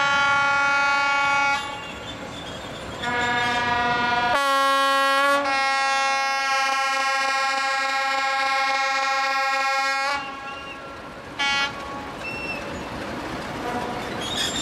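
Horns of class 751/752 "Bardotka" diesel locomotives sounding in a series of blasts. There is a blast of about a second and a half at the start, another of about a second a few seconds in, then a long blast of about six seconds, and a short toot near the end, over the low noise of the running locomotives.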